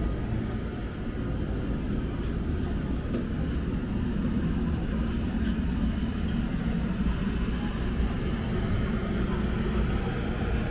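Steady low rumble of busy outdoor street ambience, even in level, with no single event standing out.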